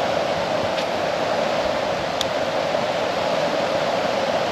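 Water falling over a small creek waterfall at low flow, a steady even rush of water, with one faint tick about two seconds in.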